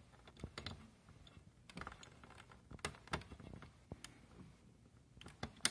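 Scattered small clicks and handling rustles as a test-lead ground clip is fitted onto a radio's speaker output terminal, with one sharper click near the end.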